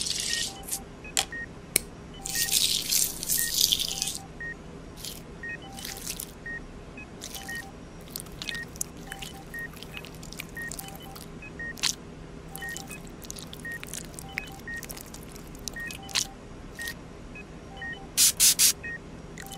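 Close-up surgical-instrument work on an orange: wet squishing of peel and flesh and small sharp clicks of tools. Under it runs regular electronic beeping like a heart monitor, over a steady low hum. About two seconds in there is a longer hissing rush, and there are a few loud bursts near the end.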